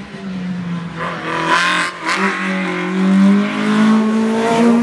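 A small hatchback race car's engine revving hard as the car approaches and passes close by. Its pitch climbs, dips briefly about two seconds in, then climbs again, and it is loudest about three seconds in as the car goes past.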